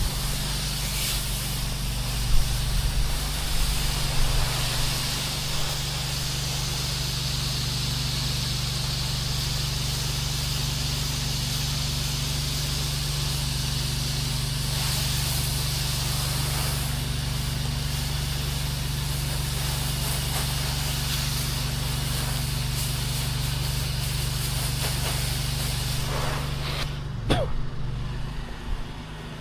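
Soft wash rig spraying sodium hypochlorite solution: a pump running with a steady hum under the hiss of the spray from the hose nozzle. Near the end the spray stops.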